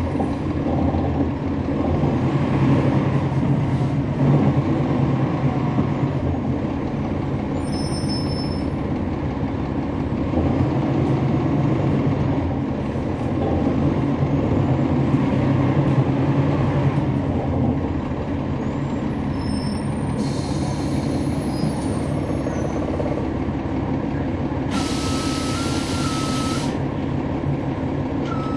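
On board a 2011 NABI 40-SFW transit bus, its Cummins ISL9 diesel engine runs under way, pulling harder twice and then settling to a steadier drone. Near the end there is a burst of air hiss lasting about two seconds, and an alternating two-note warning beep starts with it.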